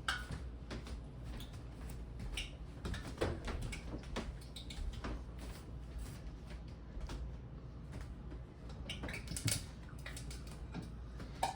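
Scattered small clicks, taps and knocks of kitchen things being handled, with a brief squeak or scrape now and then, over a low steady hum.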